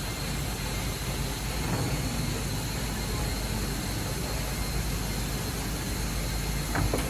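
Automated panel sanding line running: a steady machine hum and hiss with a faint high whine, and a sharp clack near the end.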